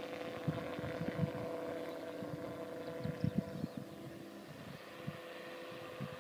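Distant gyroplane's engine and propeller droning steadily in flight, getting quieter from about four seconds in as it moves away, with wind buffeting the microphone.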